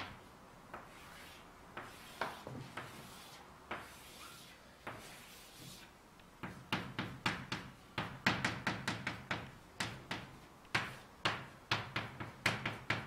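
Chalk on a blackboard. For the first half or so there are softer scraping strokes as long curves are drawn. From about six and a half seconds in, a fast run of sharp taps and clicks follows as characters are written.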